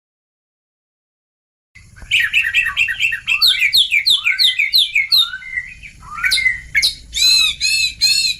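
Oriental magpie-robin (kacer) song starting about two seconds in: a fast run of varied whistled and chirping notes. It ends with a few harsh, scolding calls. This is a master recording played to lure a young kacer into answering.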